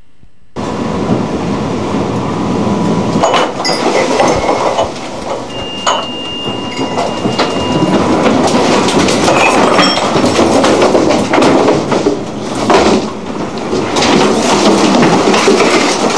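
A ship's bridge clattering, rattling and banging as the ship rolls heavily in a storm, with a rushing din of wind and sea behind it; it starts abruptly. A high steady tone sounds for about two seconds around six seconds in.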